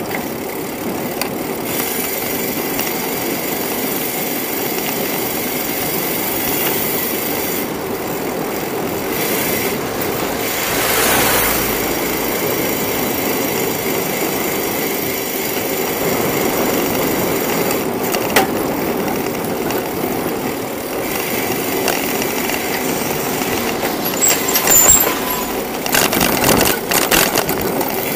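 Steady rumble and hiss of riding a bicycle along a city street, with traffic noise around it. A cluster of sharp clicks and rattles comes near the end.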